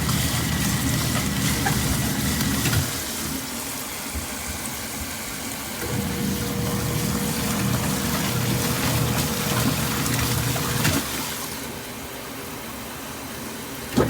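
Portable washing machine running, with water churning in the tub. Its motor hum runs for about three seconds and stops, starts again about six seconds in, runs for about five seconds and stops, as a wash motor does when it starts and pauses through the cycle.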